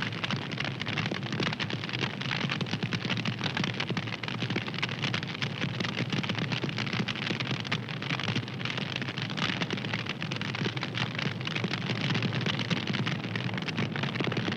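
Wood fire crackling steadily: a dense, continuous run of small snaps and pops over a low rushing of flame.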